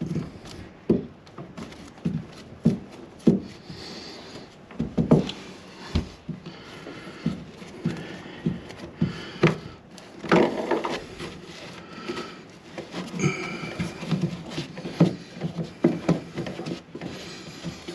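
White plastic tub drain pipe and fittings handled in a tight space under a bathtub: irregular knocks, taps and scraping as they are worked into line, with a few sharper thuds about five and ten seconds in.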